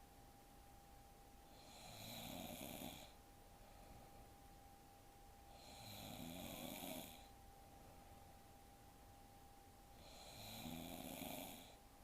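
A young woman snoring in her sleep: three snores about four seconds apart, each lasting about a second. A faint steady hum runs underneath.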